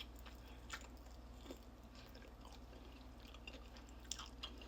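Faint chewing of fried chicken: scattered soft mouth clicks and small crunches close to the microphone, over a steady low hum.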